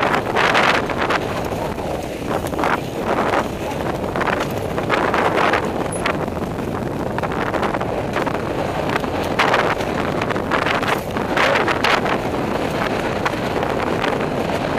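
Wind buffeting a helmet-mounted camera's microphone at speed, over the rattle and tyre noise of a mountain bike descending a dirt trail, with many short, irregular bursts of clatter.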